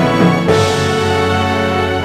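Background music of sustained chords, with a new chord coming in about half a second in.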